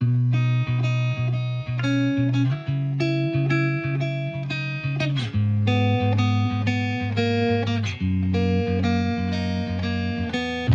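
Background music led by a plucked guitar, with notes changing in a steady rhythm.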